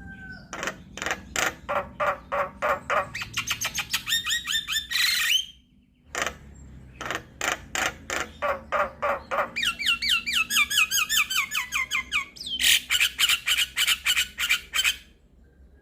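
Javan myna (jalak kebo) singing: fast runs of repeated notes that speed up into quick trills and pitch-bending phrases, in two bouts broken by a short pause about six seconds in.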